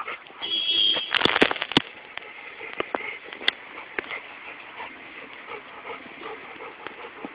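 A dog gives a brief high, steady whine about half a second in, followed by a quick cluster of sharp clicks, then softer scattered clicks over the dog's quiet panting.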